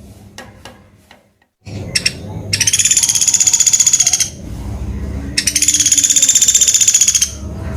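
Pelatuk beras woodpecker calling: two long, rapid high-pitched rattling trills of about two seconds each, after a few faint clicks.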